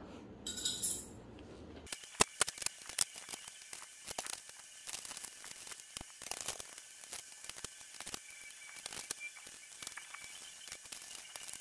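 Faint, irregular clicks, taps and scraping of a plastic child bike seat and its metal brackets being fitted onto a bicycle's rear rack, with a Phillips screwdriver working the mounting bolts.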